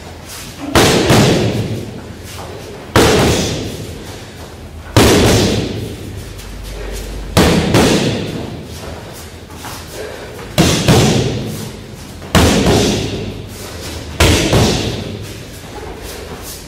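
Gloved backfist-and-punch strikes landing on handheld focus mitts: seven loud slaps about every two seconds, each dying away in echo.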